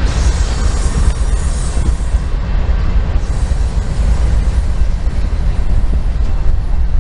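Mid-train diesel-electric locomotives of a long intermodal freight train passing close by, a steady deep engine rumble mixed with the running noise of wheels on rail.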